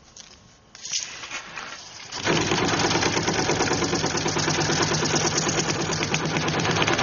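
Water pipes hammering: a rapid, steady chattering rattle that starts suddenly about two seconds in and keeps going. It is the symptom of a bad water pressure regulator.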